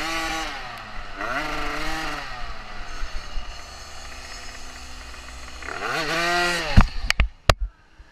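Dirt bike engine revving up and down as it is ridden, rising in a last rev near the end. A few sharp knocks follow as the bike goes down in a spill, and the engine falls quiet.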